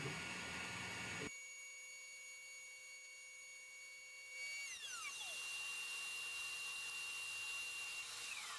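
CNC router spindle whining at high speed with several steady high tones. A lower rumble cuts off suddenly about a second in, and partway through and again near the end the whine falls in pitch as the spindle slows.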